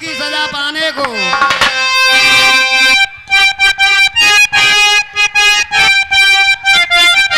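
Rasiya folk music accompaniment. About a second in, a voice glides down in pitch and ends. After that a reedy, harmonium-type melody plays in short, choppy repeated notes over a hand-drum beat.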